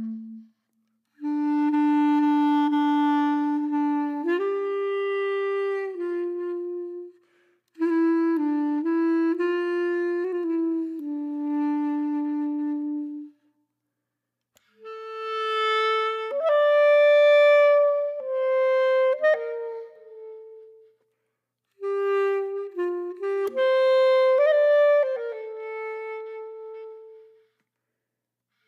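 Background music: a slow solo melody of long held notes, played in phrases separated by short silences.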